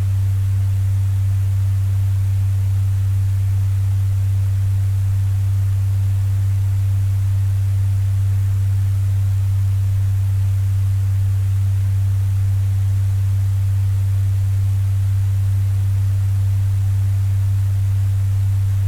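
Electric fan running on a strong setting: a loud, steady low hum with a faint airy hiss above it, unchanging throughout.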